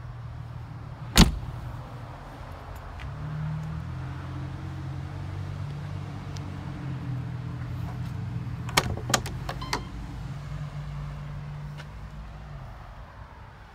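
A Land Rover Defender 110's metal door shut with a single loud slam about a second in. Later comes a quick run of four or five sharp clicks from the rear door's handle and latch as it is opened, over a steady low hum.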